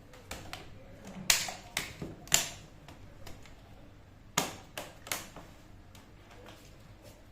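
Sharp plastic clicks and knocks from a laptop's case and parts being handled and pressed together during reassembly, about eight in all, the loudest about a second in, near two seconds and past four seconds.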